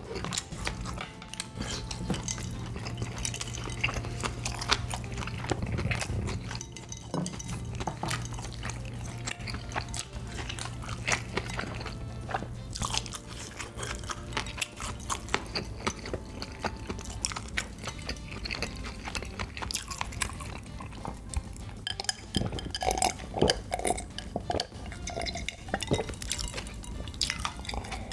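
A person chewing a mouthful of food, with many small wet mouth clicks. Later comes a drink of iced cola from a glass.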